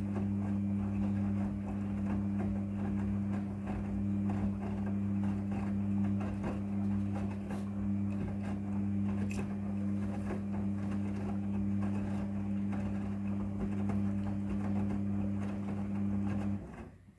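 Midea front-loading washing machine humming steadily with a crackling, gurgling water noise under it, cutting off suddenly near the end.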